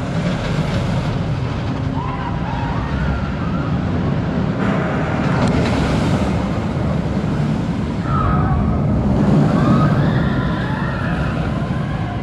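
Intamin steel roller coaster (Colossus) running its train over the track: a steady, loud rumble, with riders' screams rising and falling faintly several times.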